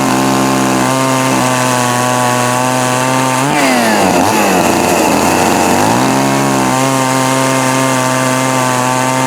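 Two-stroke chainsaw running at high revs, its pitch dipping and climbing back about halfway through and starting to drop again at the end.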